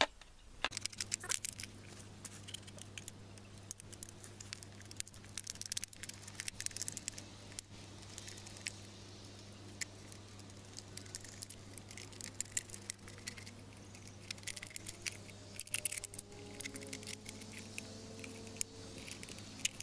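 Knife point cutting and scraping through the thin aluminium wall of a beer can: an irregular run of sharp clicks and scratches, over a steady low hum.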